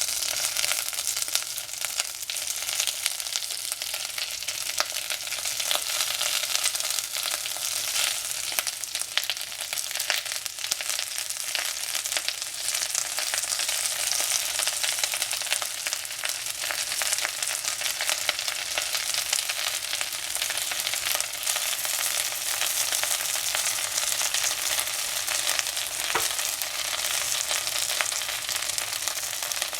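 Chinese cabbage frying in hot oil in a pan: a steady sizzle with constant small crackles.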